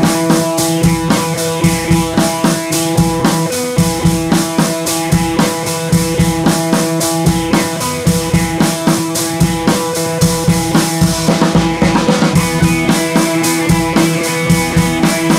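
Background music with a steady drum beat and guitar.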